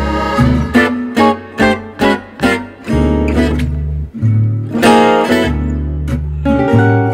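Gypsy jazz group playing live: two acoustic guitars strumming chords over a plucked double bass. About a second in comes a run of short, clipped chords roughly every half second, then the fuller strummed playing resumes.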